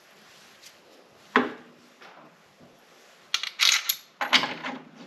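A sharp knock about a second and a half in, then clusters of clicks and clatter as a motorcycle rear shock and its mounting bolts are handled and set into place.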